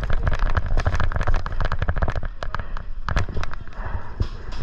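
Airsoft guns firing, a rapid, irregular crackle of sharp shots.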